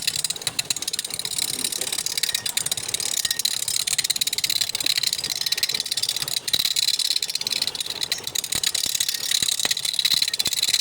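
Wood lathe running with a tool working the spinning wood: a steady, loud hiss.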